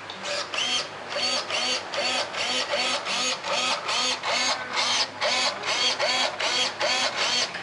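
Small electric motor in an RC model speed boat whirring in short repeated bursts, about three a second, each rising and falling in pitch, as the transmitter controls are worked.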